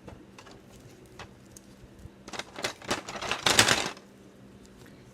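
Handling noise: a few light clicks, then a quick flurry of clicking and rattling from about two and a half to four seconds in, as objects are picked up and moved during a quick exam.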